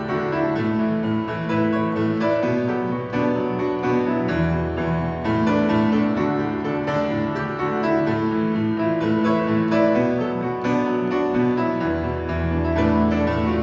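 Kawai upright piano played solo in a rock-song arrangement: full held chords over a moving melody, with deep bass notes coming in at times.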